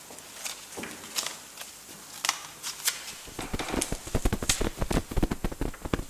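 A few scattered clicks, then from about three seconds in a rapid, irregular patter of taps and knocks as the sheep puppets scurry onto the puppet stage.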